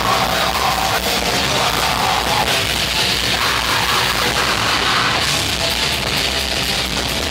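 Live crust punk/grindcore band playing at full volume: heavily distorted guitars and pounding drums in a dense, unbroken wall of sound.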